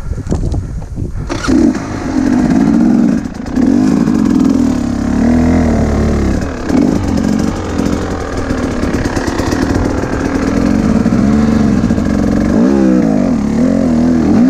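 Dirt bike engine: the throttle opens sharply about a second in, then it revs up and down repeatedly, the pitch rising and falling as the rider works the throttle.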